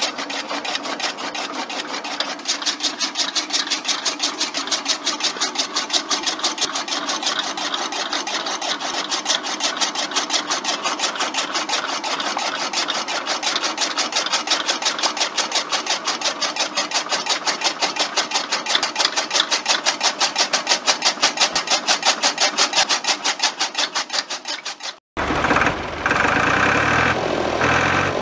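A small electric motor running a toy chaff cutter by belt, with a rapid, even clicking from the cutter's mechanism as it chops grass stalks. About three seconds before the end the sound cuts off abruptly and a different, steadier motor sound follows.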